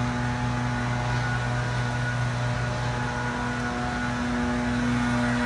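Steady machine hum: a constant low drone with a few fainter higher tones, from motorized equipment running in the neighborhood.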